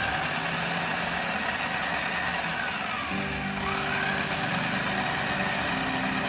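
Electric mini chopper's motor running flat out, its blades whirring through a paste of shallots, garlic, turmeric and spices loosened with a little oil. The whine sags in pitch near the middle and picks up again.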